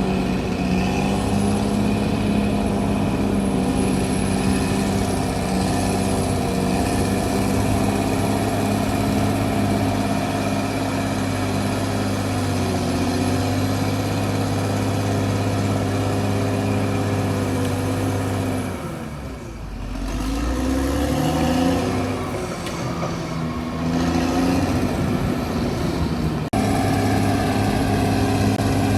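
CAT D6R XL bulldozer's diesel engine running steadily under load. About two-thirds of the way through, its pitch drops briefly and then climbs back up as the engine revs again.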